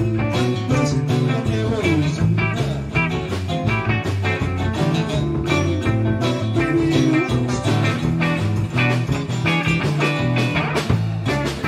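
Live band playing an instrumental passage of a blues-rock song on electric bass, drum kit and two guitars, one an archtop, with a few bent guitar notes.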